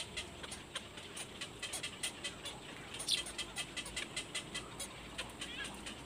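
Black-crowned night heron chick calling: a run of short, high-pitched ticking calls, several a second, with one louder call falling in pitch about three seconds in.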